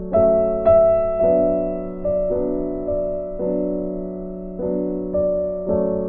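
Background piano music: slow, gentle notes and chords, struck about once a second and left to ring and fade.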